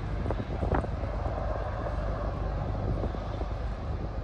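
Wind rumbling on the microphone at the seashore, a steady low buffeting with a hiss of lapping water and a few short clicks.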